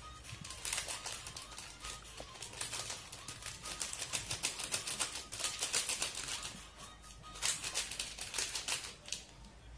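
Crinkling and crackling of a foil drink-powder sachet being squeezed and shaken empty over a metal pot, in quick irregular clicks that come in bunches, loudest from about four to six seconds in.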